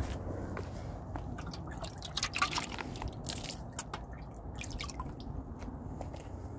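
Water splashing and dripping as a plastic dog bowl is dipped into a water tank and filled, with a few short splashes around the middle.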